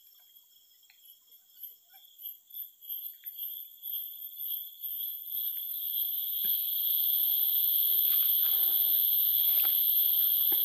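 Forest insects calling: a thin, very high steady trill and a lower pulsing drone that swells about six seconds in. Scattered rustling and a couple of sharp clicks come in over it in the second half.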